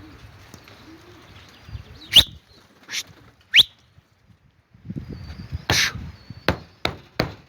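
A few short, sharp bird chirps, two of them sweeping quickly upward in pitch. In the second half come gusts of strong wind buffeting the microphone and several sharp clicks.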